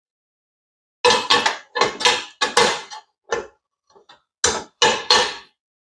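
Metal parts of a Coleman 4-in-1 portable propane grill clattering as the griddle/grill plate and wok lid are nested into the grill bowl: a series of quick clanks and knocks in clusters, starting about a second in and again near the end.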